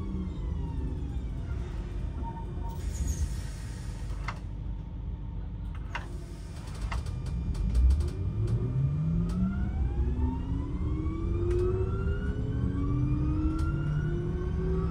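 Electric train's traction motors whining down in pitch as it comes to a stop. A short burst of hiss comes about three seconds in, then a few clicks. From about halfway the whine rises again in several tones as the train pulls away.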